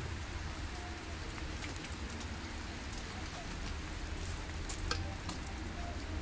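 Light rain falling, with scattered drops ticking on surfaces, over a low steady rumble.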